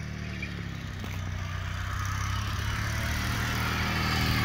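Sears GT18 lawn tractor engine running at a steady speed, growing gradually louder.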